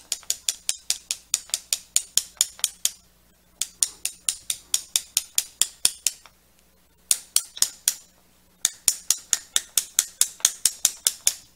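Needle-nose pliers tapping lightly on the front shaft bushing of a vacuum pump, working it up off the shaft: rapid metal ticks, about six a second, in four runs broken by short pauses.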